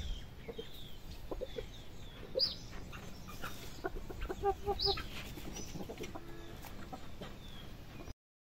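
Shamo chickens clucking: scattered short clucks, with a quick run of four or so near the middle, and a few short high calls. The sound cuts off suddenly just before the end.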